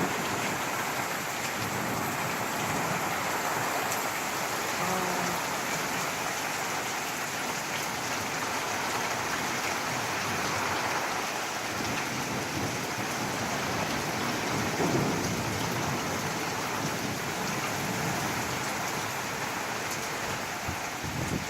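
Heavy rain pouring down steadily in a thunderstorm, with a low rumble of thunder swelling about two-thirds of the way through.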